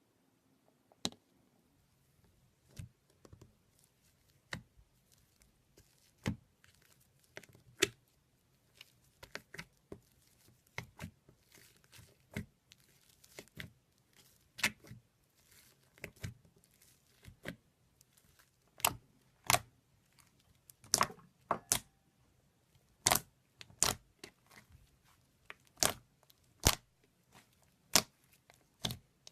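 Slime being handled close to the microphone, giving a series of sharp pops and clicks. They are sparse at first and come more often and louder in the second half.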